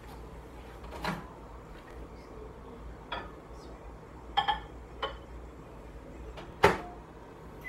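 Several separate knocks and clinks of kitchen handling, such as doors opening and closing and a cup being set down, as water is got ready for heating, the loudest knock near the end. A short microwave keypad beep comes right at the very end.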